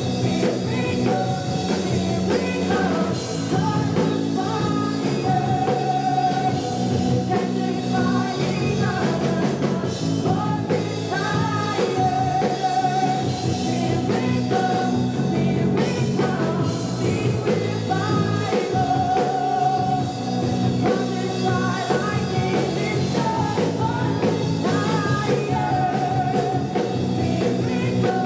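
Live worship band playing a rock-style song: electric guitar, drum kit and a lead singer, whose long held notes recur every couple of seconds over steady chords.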